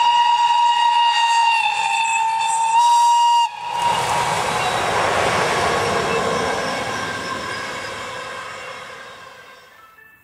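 A train horn sounds one long steady blast that cuts off about three and a half seconds in; then the noise of a train of passenger coaches running past on the track takes over and slowly fades away.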